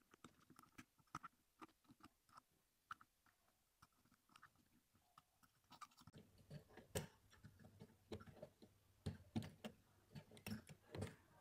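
Thin bent metal pick scraping and ticking inside a phone's charging port as it digs out packed lint. Small irregular clicks and scratches, sparse at first, then denser and louder from about six seconds in.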